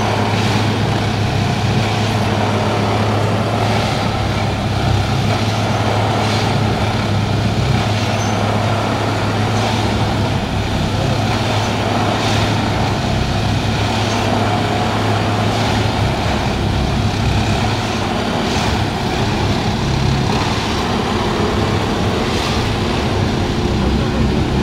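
Plasser Duomatic 09-32 C track tamping machine's diesel engine running steadily with a strong low hum, with light knocks about every two seconds.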